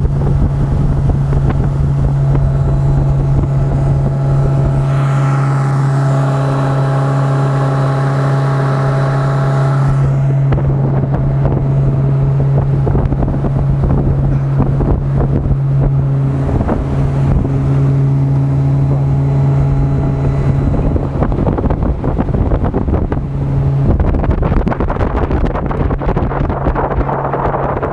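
A 115-horsepower outboard motor running hard at planing speed, a steady engine drone under the rush of wind and water past the boat. The drone dips briefly twice in the second half.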